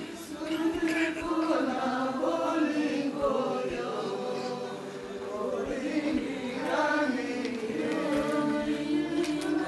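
A group of singers leading a song together, several voices singing at once.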